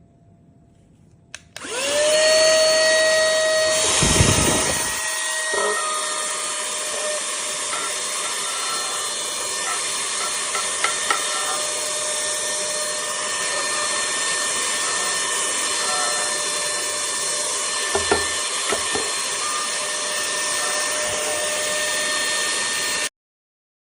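REDBUZZ 2-in-1 cordless mini car vacuum running. It starts with a click, spins up within a fraction of a second to a steady high whine with a rush of air, and runs for about twenty seconds with a brief low rumble early on and a few small ticks. It cuts off abruptly near the end.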